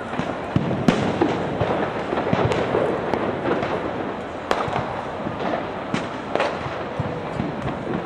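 Firecrackers and fireworks going off around the city: frequent, irregular sharp bangs over a steady background of city noise.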